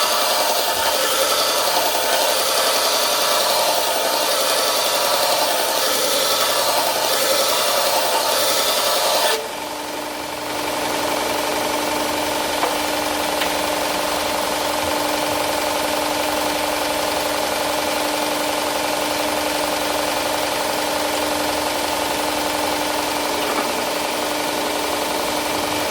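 Belt grinder working steel with a loud, even hiss for about nine seconds. The grinding stops suddenly and the grinder keeps running unloaded with a steady hum.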